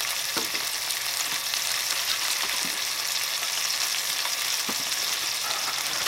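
Food cooking in a square aluminium pot on a lit gas camp stove. It makes a steady sizzling hiss with a few faint pops.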